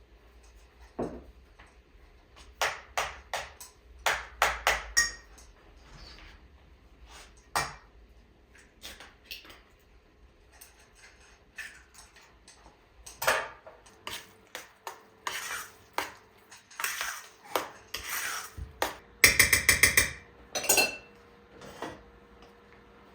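Kitchen clatter of dishes and utensils: scattered knocks and clinks, with a quick run of even taps about three quarters of the way through that is the loudest part.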